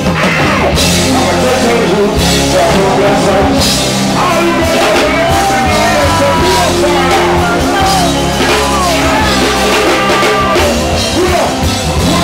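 Live reggae band playing at full volume, with drum kit, bass and keyboards, and a male vocalist singing into a microphone over it.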